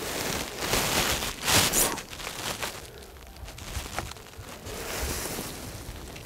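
Rustling and handling noise as an angler in a padded winter jacket moves about his fishing rods, with a louder rustle about one and a half seconds in.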